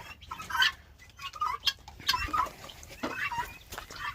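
Guineafowl calling: many short calls, one after another at an uneven pace.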